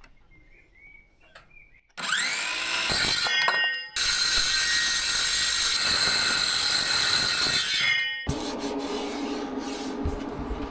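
Battery-powered power saw cutting wood: it starts about two seconds in with a rising whine as the motor spins up, pauses briefly near four seconds, runs steadily through the cut and stops about eight seconds in. A lower, rougher steady rubbing sound follows to the end.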